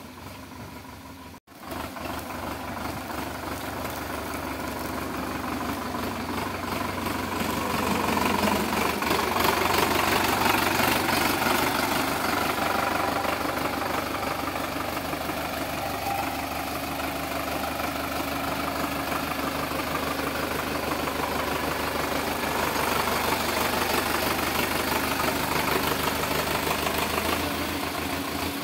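Sonalika 750 tractor's diesel engine running, its revs and loudness building over the first several seconds and then held up while it drives the hydraulic tipper raising the loaded trolley. The sound breaks off briefly about a second and a half in.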